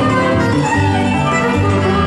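Fiddle and acoustic guitar playing a fast rag together live: the fiddle bows a quick run of notes while the guitar picks the bass and chords underneath.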